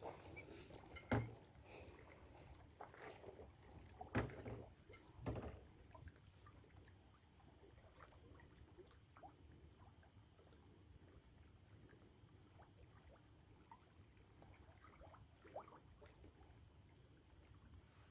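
An outdoor fire burning with faint, scattered crackling. A few sharper pops come in the first six seconds, the first the loudest.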